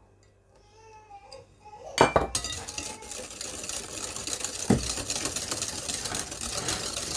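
Wire whisk beating a runny egg, sugar and melted-butter batter in a glass bowl. After a sharp knock about two seconds in, a fast, steady clinking and swishing of the metal wires against the glass keeps up, with one dull knock partway through.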